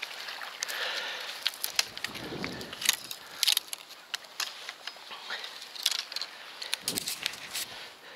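Rustling and scattered clicks of camouflage netting and clothing rubbing against the camera and bare branches, with two low thumps about two and seven seconds in.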